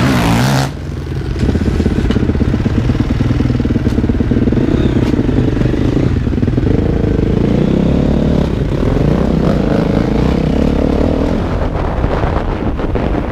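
Kawasaki KX450 four-stroke single-cylinder motocross engine riding off at low speed, its revs rising and falling as the throttle is worked, heard from the rider's helmet camera.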